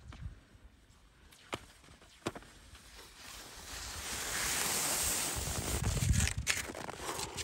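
Cross-country skis sliding on a snow track, a hiss that grows louder over a few seconds as the skier comes up close, with a couple of sharp clicks in the first few seconds, typical of ski poles planting. A low wind rumble on the microphone comes near the end.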